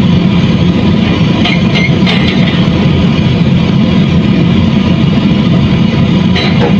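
Heavy machinery's diesel engine running steadily at a loud, even level, heard from inside a cab, with a few faint clicks and rattles.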